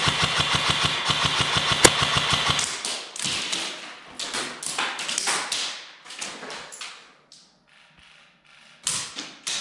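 Airsoft electric guns firing on full auto: one rapid burst of about two and a half seconds, then shorter irregular bursts, and another burst near the end.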